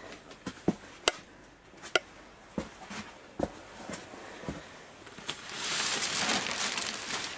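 A string of light knocks and clicks, then about five seconds in a couple of seconds of plastic film rustling as polyethylene sheeting over greenhouse beds is handled.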